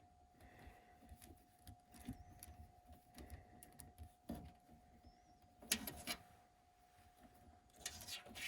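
Faint scattered clicks and small rattles of hands and tools working inside an open HVAC air handler cabinet, a louder cluster about six seconds in, over a faint steady high-pitched hum.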